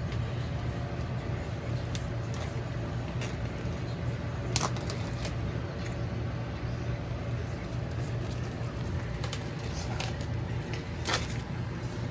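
A steady low hum, with a few sharp clicks and knocks scattered through it.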